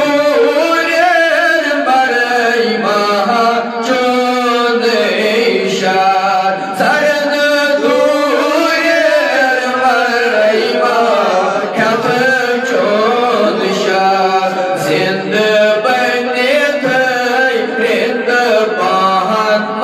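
A man singing a Kashmiri naat, an Islamic devotional poem, in a chanting style, his long lines bending and ornamented in pitch with brief breaks for breath.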